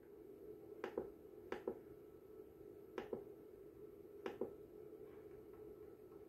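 Faint clicks from the adjustment knob of a Nice-Power SPS3010-2KD bench power supply being turned by hand: four quick pairs of clicks about a second apart, over a faint steady hum.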